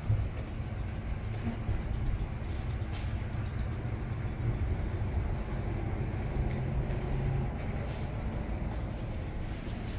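A Rosenbauer fire truck's diesel engine idling: a steady low rumble.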